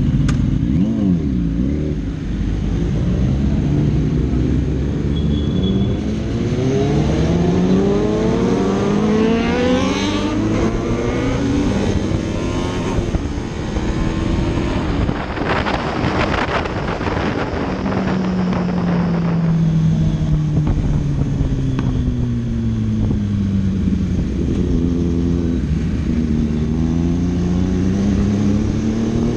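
A superbike engine revving, its pitch climbing and falling again several times, with a louder, raspier burst near the middle.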